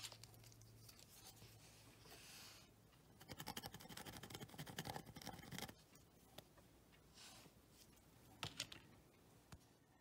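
Faint scratching and light clicking handling noises, with a quick run of scratching from about three to six seconds in and a couple of sharp ticks later.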